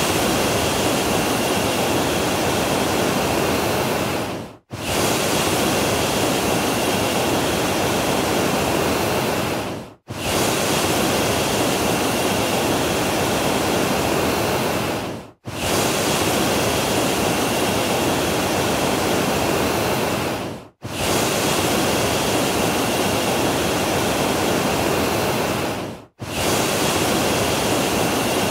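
Loud steady rushing noise, broken by brief sharp dropouts about every five seconds.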